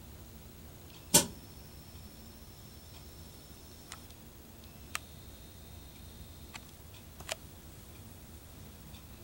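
Camera handling noise: one sharp click about a second in, then a few fainter clicks, with a thin high whine from the camera's zoom motor as it zooms out.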